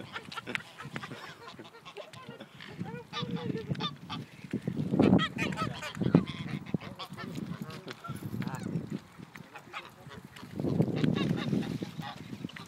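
Canada geese honking over and over, many birds calling at once, with a few louder bursts of low rumbling noise in between.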